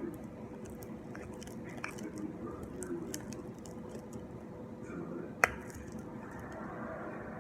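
Slime being stirred in a bowl, squishing and sticking, with light clicks of the stirring utensil against the bowl and one sharp click about five and a half seconds in.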